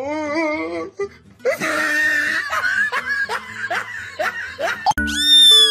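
A person laughing in a run of short bursts. About five seconds in, a sudden bright musical sound effect starts: a high tone sliding downward over held notes.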